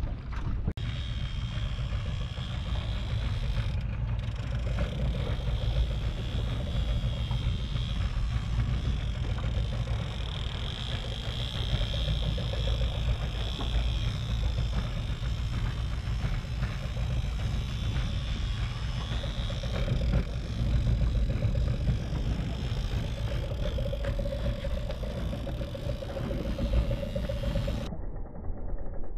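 Small outboard motor running steadily as the boat moves under way, mixed with a low rumble of wind on the microphone.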